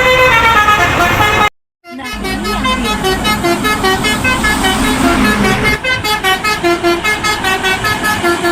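Multi-tone 'telolet' bus horn playing quick melodies of short notes. The sound cuts off suddenly about a second and a half in, and after a short gap another horn melody starts.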